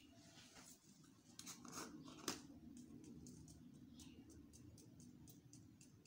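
Faint clicks and ticks of a plastic container and its green lid being handled and opened, with one sharp click about two seconds in and a run of small ticks after it, over a steady low hum.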